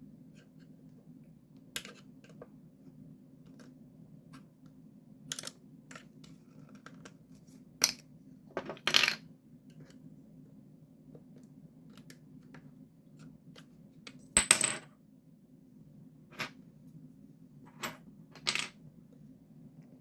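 Scattered sharp clicks, knocks and small metallic clinks of hard parts being handled while the Logitech Z623 control unit is taken apart. One clink about 14 seconds in rings briefly. A faint steady low hum runs underneath.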